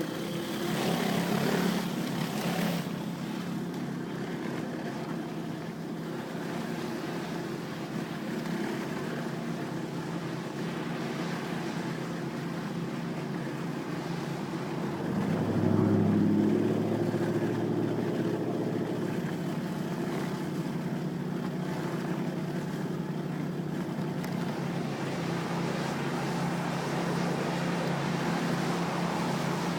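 Gas pressure washer's small engine running steadily under the hiss of the water spray, louder for a couple of seconds about halfway through.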